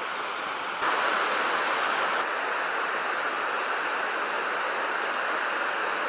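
Steady rushing of water over a rocky river waterfall, an even hiss of white water; it jumps abruptly louder just under a second in.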